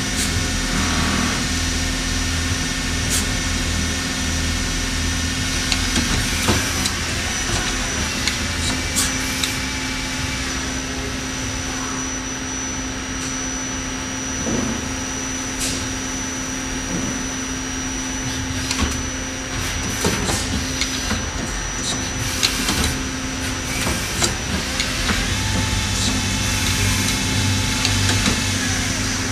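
Miyano LM-11 twin-turret CNC lathe running through its machining cycle: a steady hum with a thin high whine through the middle, and scattered clicks and knocks as the turrets move.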